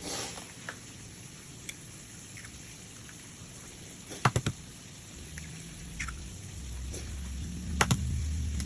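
Kitchen cooking sounds: scattered light clicks and knocks of utensils and cookware, including a quick run of three clicks midway and two more near the end, over a low hum that builds in the second half.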